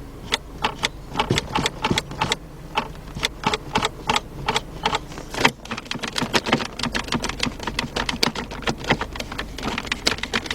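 Rapid, irregular clicking and tapping of hard plastic, several clicks a second with a brief pause about halfway: hands working at the center console trim around the shifter.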